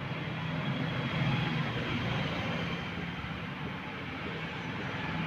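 Steady engine rumble in the background, a little louder from about one to two seconds in.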